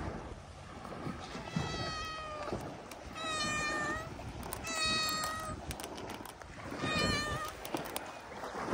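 Cats meowing: four drawn-out, high-pitched meows, roughly one every second and a half.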